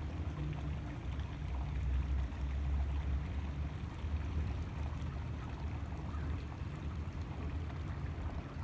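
Wind rumbling on a phone's microphone in an uneven low drone, over a faint hiss of flowing creek water.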